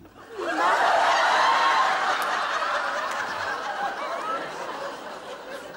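Studio audience laughing at a punchline. The laughter swells about half a second in and slowly dies away.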